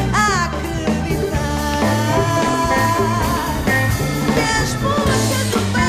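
A band plays a song live while a woman sings the lead into a microphone. Her voice swoops in pitch near the start, over a steady bass and rhythm.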